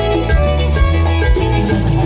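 Dance-band music with a strong bass line and a steady beat.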